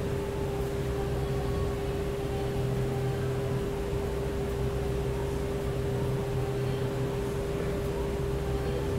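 Steady mechanical hum with a constant mid-pitched tone over a low drone, unchanging throughout.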